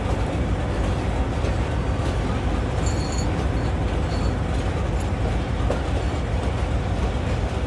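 Passenger train coaches rolling in along the platform, a steady deep rumble with no distinct wheel clicks.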